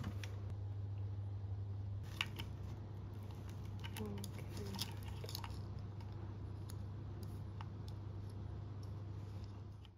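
A steady low hum, with a few light clicks and taps, that cuts off suddenly near the end.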